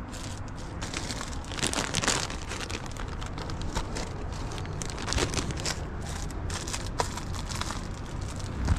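Plastic bags and snack wrappers crinkling and rustling as food is handled, in irregular crackly bursts, with a steady low rumble underneath.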